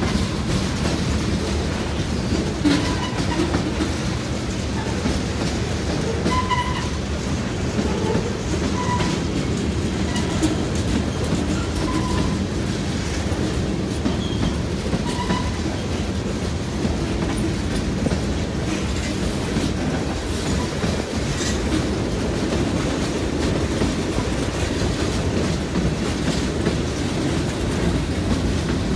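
Freight train of tank cars rolling steadily past at a grade crossing: a continuous rumble and clatter of steel wheels over the rail joints. A few short high squeaks come now and then between about six and sixteen seconds in.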